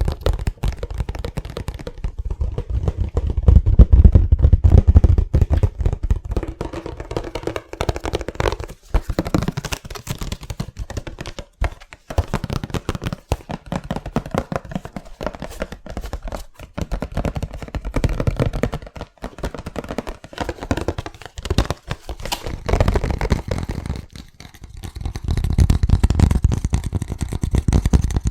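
Fast, aggressive tapping with fingers and nails on a hard object, a dense run of quick taps with no let-up. Heavier, deeper thuds come in two stretches, about four seconds in and again near the end.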